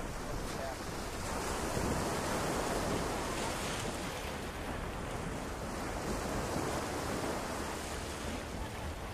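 Small surf washing up the sand and over low rocks at the shoreline: a steady hiss that swells and eases as the waves come in.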